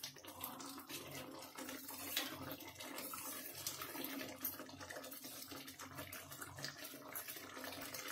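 Thin potato curry in a steel kadhai being stirred with a steel ladle as it comes to the boil: faint liquid sloshing and bubbling with scattered small clicks.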